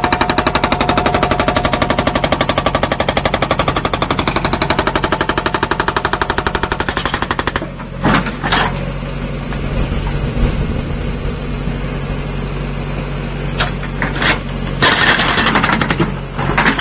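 Hydraulic rock breaker (Indus SAGA70) on a backhoe loader hammering rapidly for about eight seconds, then stopping, over the steady running of the backhoe's diesel engine. A few separate clanks follow, then a short second burst of hammering near the end.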